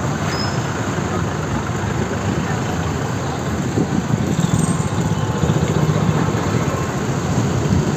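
Steady street din: traffic engines running and indistinct voices.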